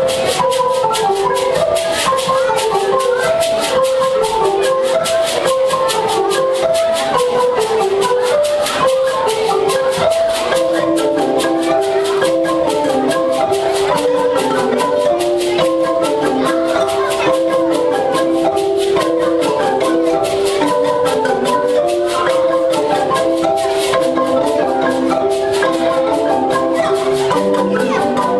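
A band of wooden marimbas with tube resonators playing an interlocking, repeating melody at a steady tempo, with a crisp rattle keeping time above the notes.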